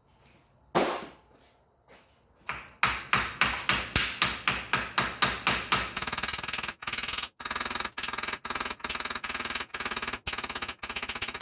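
Metal being hammered in a workshop: one loud clang with ringing, then from about two and a half seconds in a steady run of blows about four a second. From about six seconds the blows turn into rapid, near-continuous hammering in short runs.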